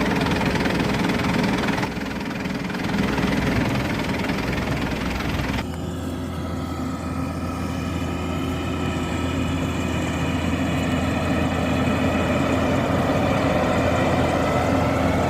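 Rice combine harvester's engine running steadily. About five and a half seconds in the sound changes abruptly, and a steady low hum takes over for the rest.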